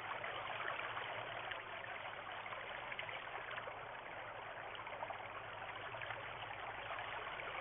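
Shallow stream running steadily over stones and gravel.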